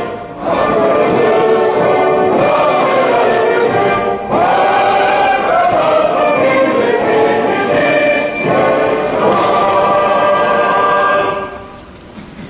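Many voices singing together as a choir, with musical backing, in long held phrases. The singing drops away about a second before the end.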